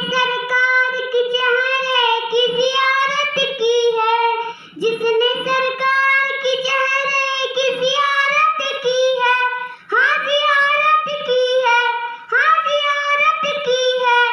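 A young girl singing a naat, an Urdu devotional song, unaccompanied with long held notes, pausing briefly for breath about five and ten seconds in.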